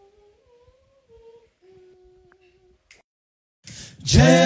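Soft humming of a few held notes at steady pitches. About four seconds in, a male a cappella group comes in loudly, singing together in harmony.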